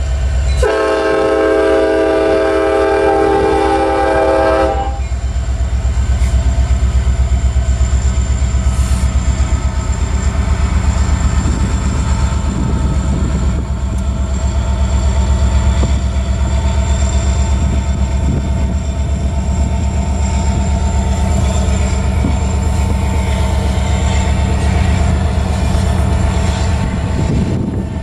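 Diesel freight locomotive's air horn blowing a long blast that stops about five seconds in. After it, the locomotive and a string of covered hopper cars roll through the crossing with a loud, steady rolling sound and a fast clickety-clack of wheels over the rail joints.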